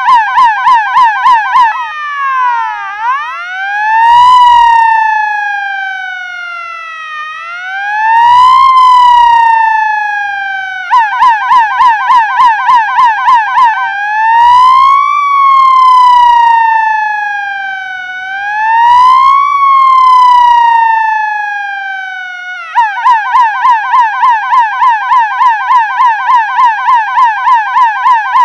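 Electronic ambulance siren switching between its two tones. A fast yelp changes about two seconds in to a slow wail that rises and falls every four to five seconds. Near the end it switches back to the fast yelp.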